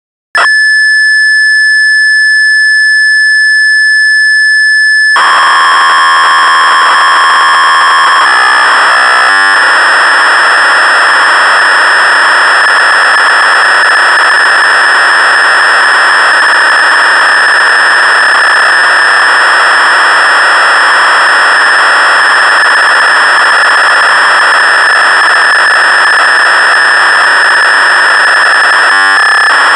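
Solton Ketron Programmer 24 cassette data dump of pattern memory: a steady, piercing high leader tone begins about half a second in, then about five seconds in the harsh, hissing, buzzing data signal takes over, with a brief break a few seconds later and again near the end.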